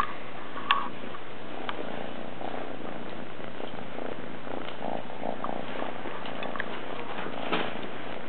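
Kitten purring steadily while suckling on a blanket, with a few brief soft clicks.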